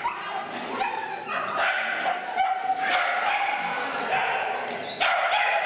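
Shetland sheepdog barking repeatedly and excitedly while running an agility course, the high barks coming about once a second and echoing in a large hall.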